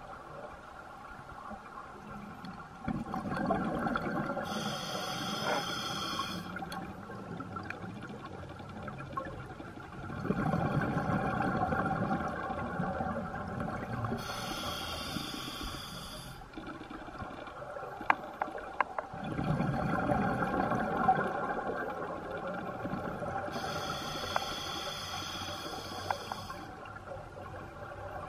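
Scuba diver breathing underwater through an open-circuit regulator: three slow breaths, each with a hiss of air through the regulator and a rush of exhaled bubbles. A few sharp clicks come in the middle.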